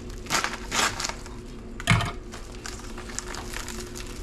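Kitchen handling noises: two short rustling scrapes, then one sharp knock about two seconds in, followed by faint light clicks.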